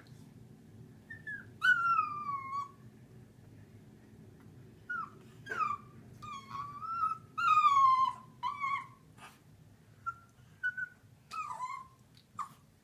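Cockapoo puppy whining and whimpering in a series of high, falling cries. There are short yips and a few longer drawn-out whines, the longest about two seconds in and again around eight seconds in. The puppy is reluctant to go down the stairs.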